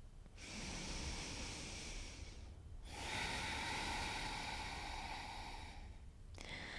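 A person's slow, deep, audible breathing: one breath of about two seconds, a short pause, then a longer breath of about three seconds, and the start of another near the end.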